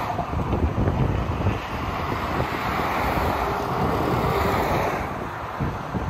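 Expressway traffic: a steady rush of car tyres and engines that swells and eases as vehicles pass, with gusts of wind buffeting the microphone.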